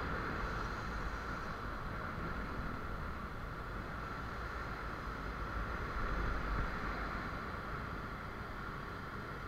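Steady riding noise from a moving Yamaha Aerox 155 scooter: its single-cylinder engine running at cruising speed under a low rumble of wind and road noise on the microphone, swelling slightly about six seconds in.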